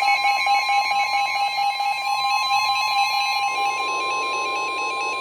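NOAA Weather Radio warning alarm tone: a steady single pitch (1050 Hz), sounding together with a faster, pulsing electronic alert beep from the weather radio receivers. A hiss of radio static joins about three and a half seconds in.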